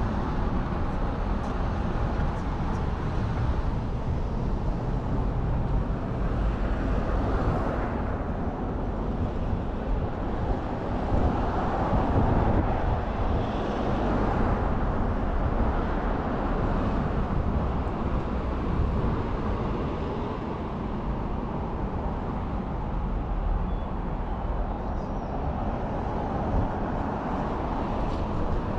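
City street ambience: a steady wash of road traffic, with a vehicle passing more loudly about twelve seconds in.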